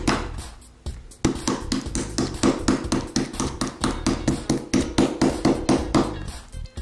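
Metal meat mallet pounding a halved chicken heart flat on a cutting board: quick, light, regular blows, about four a second, with a short pause just after the start.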